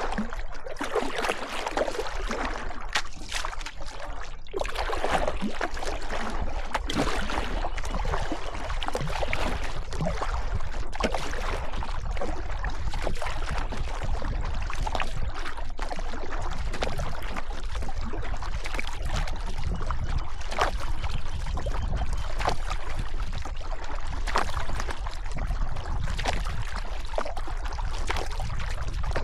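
River water rushing and splashing steadily, with many short, sharp splashes over a constant low rumble.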